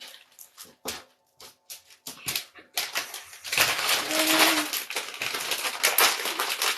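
Plastic candy packaging being handled while gummy pieces are unpacked: scattered clicks at first, then from about three seconds in a dense, continuous crinkling.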